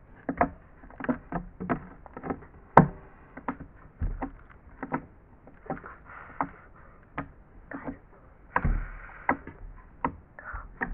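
Sticky slime being squished and pulled by hand, making a string of irregular wet clicks and pops, with one sharper pop about three seconds in.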